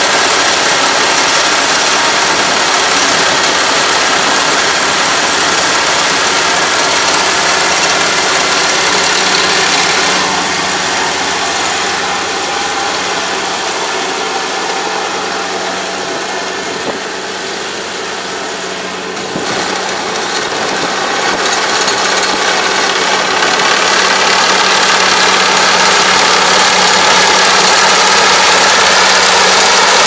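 Kubota ARN460 combine harvester running steadily as it cuts rice. It is fainter for a stretch in the middle and grows louder as it comes near toward the end.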